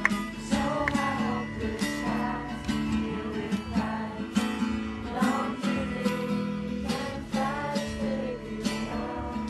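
Music with a strummed acoustic guitar and a singing voice.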